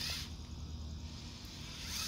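Cordless drill turning a K-Brands auger bit into hard, dry dirt, with a gritty hiss. The hiss stops about a quarter second in and starts again near the end.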